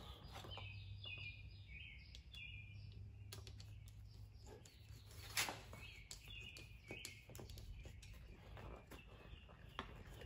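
Faint clicks and light metal taps from a screwdriver loosening the small hose clamps on an outboard's fuel filter, the sharpest about halfway through. Birds chirp in short trills in the background over a steady low hum.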